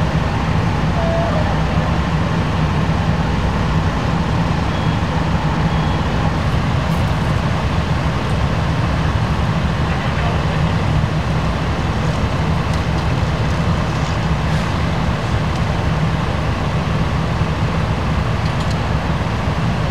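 An engine running steadily, a low drone with a constant hum, and faint clicks now and then.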